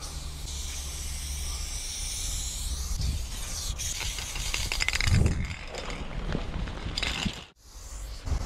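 Aerosol spray paint can hissing as paint is sprayed in long and short strokes, over a steady low rumble. A louder low thump comes about five seconds in.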